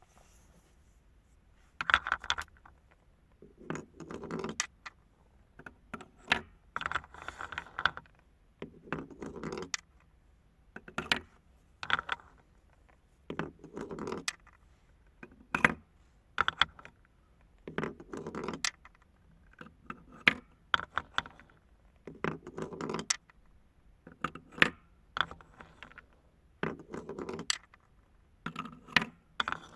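Marbles rolling and clacking down a marble run track, in repeated rattling bursts about every two seconds, each made of sharp clicks over a lower rolling rumble.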